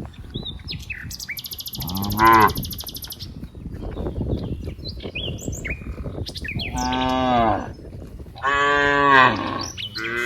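Cows mooing: three long, drawn-out moos that each rise and fall in pitch, with another starting near the end. Birds chirp faintly in between, and a high buzzing trill sounds early on.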